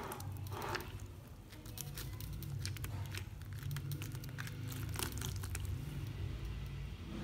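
A hand pressing and kneading a large mass of freshly activated clear-glue slime in a glass bowl: wet squishing with many small crackles, over a low rumble.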